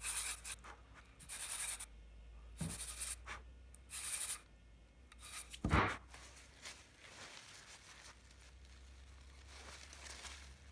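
Sandpaper on a hand sanding block scraped in short strokes against a small wing-mount part, about one stroke a second, to shorten it. A solid knock about six seconds in, then fainter rubbing and handling of the part.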